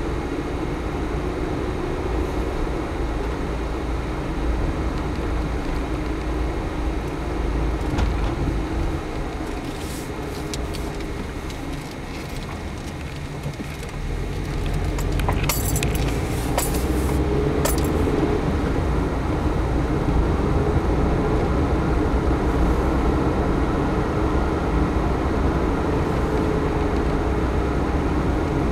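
A car driving at low speed: a steady engine and road rumble that eases off briefly about halfway through, then grows louder as the car picks up speed. A few light clicks or rattles come just after the rise.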